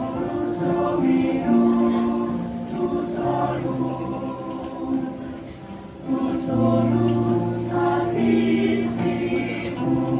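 Children's choir singing a church song in several parts, with long held chords and a low note sustained underneath.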